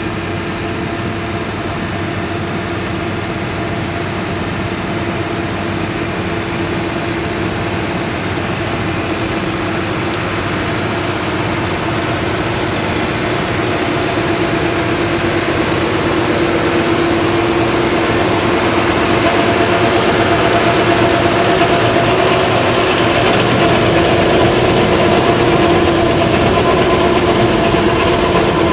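Engine of the machinery spreading biosolids on the field, running steadily with a constant hum and drone. It grows louder through the second half.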